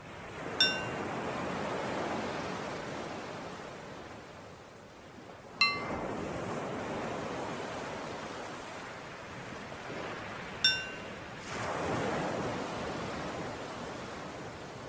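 Ocean waves surging and receding in slow swells, with a bell struck three times about five seconds apart, each ring fading quickly. The bell marks each switch between inhaling and exhaling in a paced-breathing exercise.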